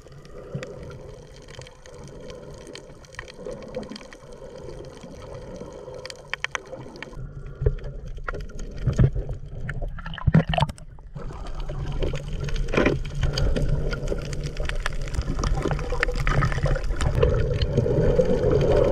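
Water sloshing and splashing, with a motor running steadily under it from about halfway in, growing louder toward the end.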